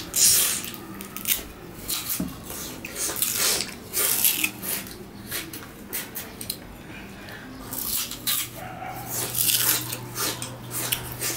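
Sugarcane rind torn off with the teeth and the fibrous cane chewed: an irregular run of crunching, cracking and rasping tears.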